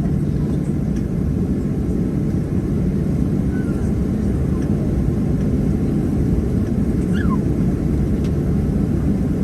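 Steady low rumble of a Boeing 737-700's cabin, with no changes in level.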